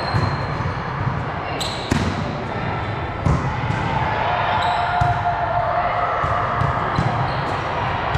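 Volleyballs being hit and bouncing on a hard gym floor, sharp knocks about once a second at an uneven pace, over the echoing hum of voices in a large hall.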